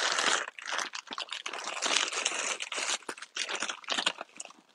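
Irregular crinkling and rustling, a dense run of small crackles that eases off near the end.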